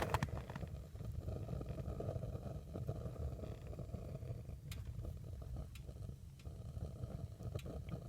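Homemade waste-oil burner, built from propane cylinders and exhaust pipe and running on diesel, burning with a steady, uneven low rumble of flame, with a few faint ticks.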